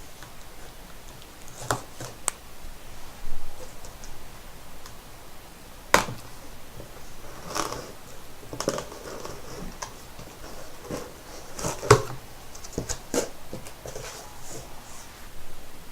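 Hands handling a cardboard shipping box while trying to get it open: irregular taps, knocks and short rustling scrapes, with two sharper knocks about 6 and 12 seconds in.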